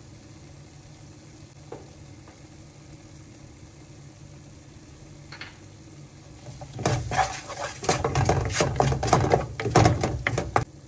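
A wooden spatula stirring and scraping tomato paste and spices around a nonstick frying pan: a quick run of loud scrapes and knocks that starts about two-thirds of the way in and stops just before the end.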